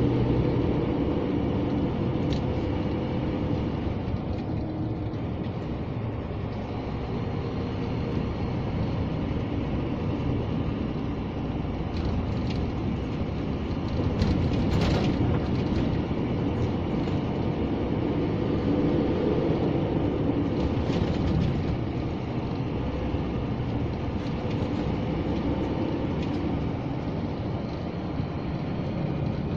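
Scania G460 truck heard from inside the cab while driving: a steady drone of engine and road noise, with a few light clicks and rattles.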